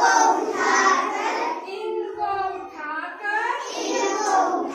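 A group of young children singing a Hindi action song together, the voices rising and falling in a sing-song chant.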